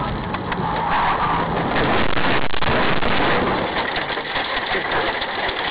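Car on the move: a steady rush of road and wind noise with crackles, swelling about two seconds in.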